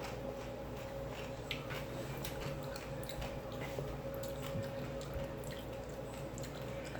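Close-up eating sounds: wet chewing and small mouth clicks, scattered and irregular, over a steady low hum.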